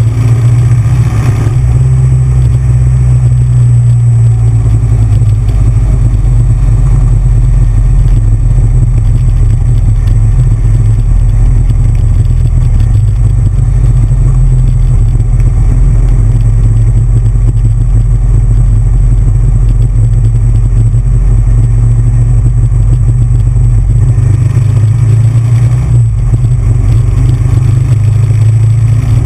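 Big Bear Choppers Titanium chopper's V-twin engine running loud and heavy under way at road speed. The engine note shifts a little about halfway through and again near the end.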